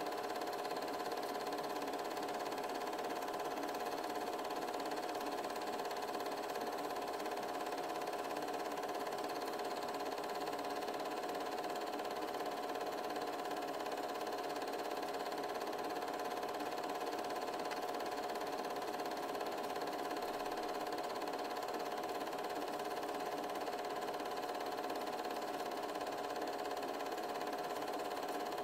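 Steady mechanical hum and hiss with a few constant whining tones: the running noise of a film projector playing silent 8mm home-movie film.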